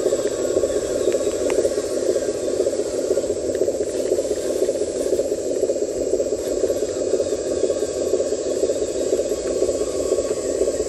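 Electric motor and gearbox of a radio-controlled dump truck running steadily, a continuous buzzing whir as the loaded truck climbs a dirt slope.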